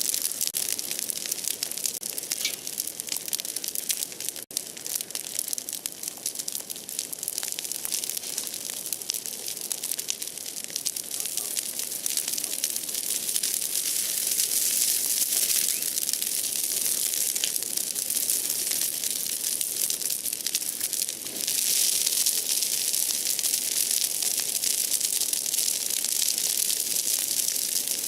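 Large outdoor bonfire of broken tree branches burning, crackling densely and continuously; it grows a little louder about three quarters of the way through.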